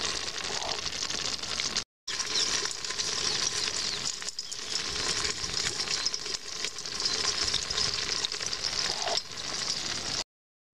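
A pot full of live freshwater field crabs crawling over one another, a dense steady crackling and scratching of legs and shells against the steel and each other. It cuts out abruptly for a moment about two seconds in and again near the end.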